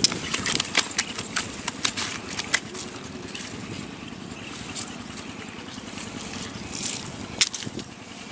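Irregular quick taps and rustles from a tyre-rimmed wire-mesh keep net holding live fish, lying on dry grass, as it is handled and the fish flap inside. The taps come thickest in the first few seconds and grow sparser after.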